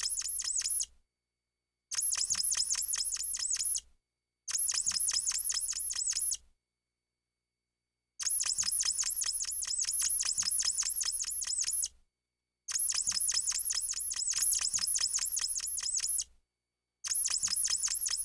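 Cartoon sound effect of rapid squeaky clicking, several clicks a second with high chirps on each. It comes in six bursts of one to four seconds, with dead silence between them.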